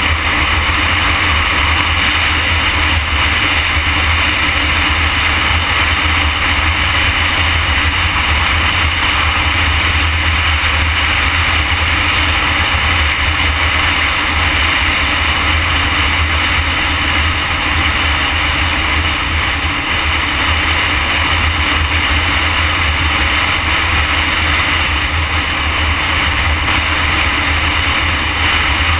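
Loud, steady wind rush on the microphone of a motorcycle-mounted camera cruising at highway speed, with the motorcycle's engine and road noise running underneath and no change in speed.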